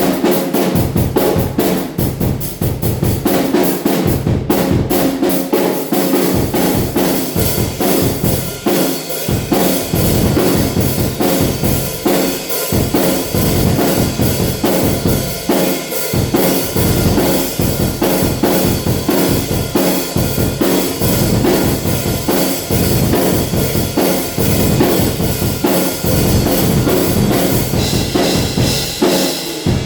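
Acoustic drum kit played continuously: bass drum and snare in a steady groove under a constant wash of cymbals.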